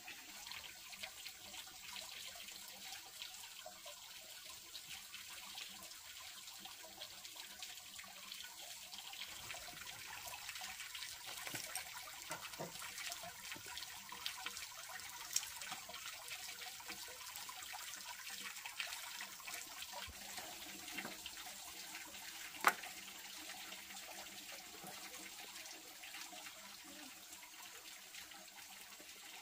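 Water trickling and splashing, broken by many small clicks and knocks. One sharper knock comes about two-thirds of the way through.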